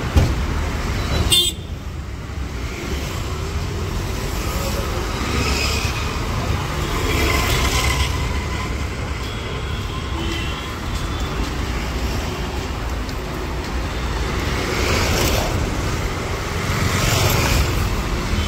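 Busy city road traffic: the engines of passing cars, vans, trucks and motorbikes running, with horns honking now and then. There is a sharp click about a second and a half in.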